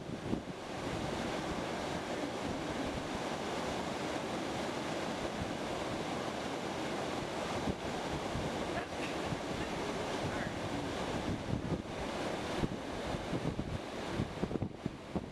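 Steady rush of water from a waterfall on a mountain stream, with wind buffeting the microphone near the start and near the end.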